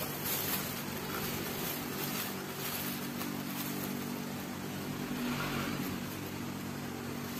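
Steady, low, droning hum of a running motor, with faint rustling and handling noises over it.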